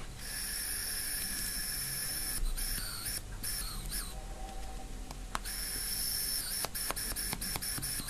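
Steady hiss of air blown by mouth through a washing machine's double-outlet water-inlet solenoid valve, broken briefly a few times around the middle, with a few light clicks in the second half. The air escapes past the lower valve, which does not close tightly, the typical fault from limescale or dirt.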